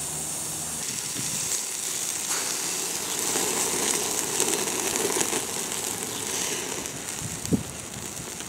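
Quarter-pound hamburger patty sizzling over charcoal on a stainless steel grill grate: a steady hiss with fine crackling, louder for a few seconds in the middle.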